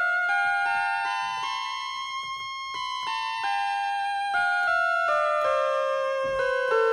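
Instrumental electronic keyboard music: a melody of stepped electric-piano-like synth notes climbing then falling back, over a faint steady beat.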